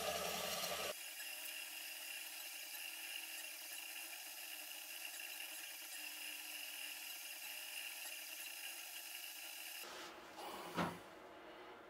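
Anycubic FDM 3D printer running mid-print: a steady mechanical whir made of several held tones, louder and deeper for about the first second. Shortly before the end comes one brief loud noise.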